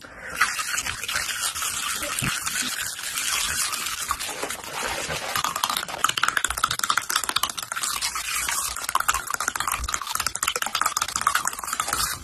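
Loud crunching of raw celery and carrot being bitten and chewed close to the microphone: a dense crackle of many small cracks without a break.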